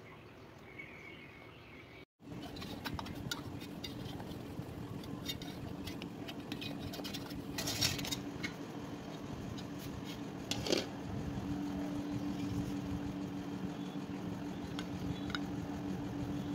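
Light clinks and taps of a metal cooking pot and a plate being handled, over a steady low hum; two louder knocks come about eight and eleven seconds in.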